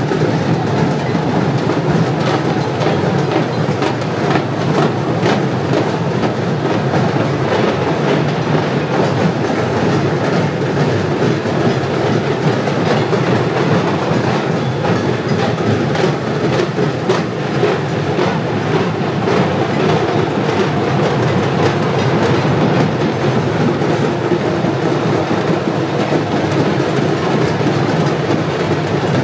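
A train running past steadily, its wheels clattering on the rails, with a continuous rumble and many irregular clicks.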